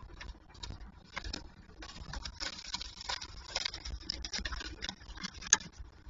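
Young peregrine falcons scrambling and shuffling in a wooden nest box. Talons scratch and feathers rustle over a floor littered with plucked feathers, densest in the middle, with one sharp tap near the end.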